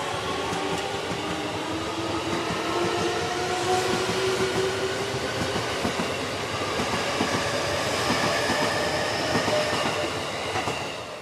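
JR East E233-2000 series electric commuter train moving away along the platform. Its traction motors give a whine that climbs slowly in pitch as it gathers speed, over the running noise of the wheels and their clacking on the rails. The sound fades near the end as the last car leaves.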